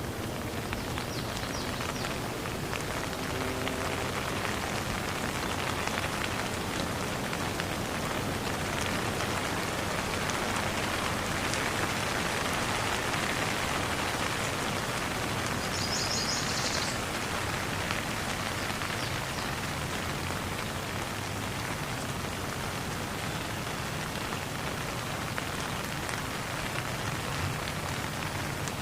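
Steady patter and hiss of falling water, dense and even. About sixteen seconds in, a bird gives a brief high, quickly repeated chirp.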